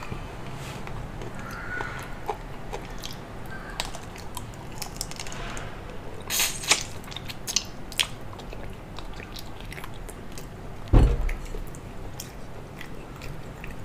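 Close mouth sounds of a person eating beef ribs by hand: chewing and gnawing meat off the rib bone, with wet smacking and small clicks. A single dull thump comes about three quarters of the way through.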